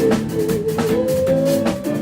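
Live band music with drums and guitar. A single held note glides slowly upward through the second half.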